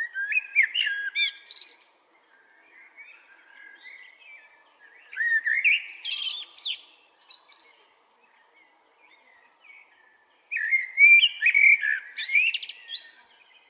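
A songbird singing, three loud phrases of quick, rising and falling whistled notes about five seconds apart, with fainter song in between.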